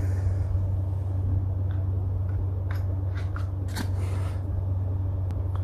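Steady low hum, with a few faint scattered clicks and scrapes from eating frozen yogurt with a toothpick out of a plastic cup.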